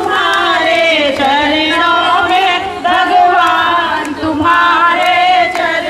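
Voices singing a devotional song together in long melodic phrases with short breaks between them.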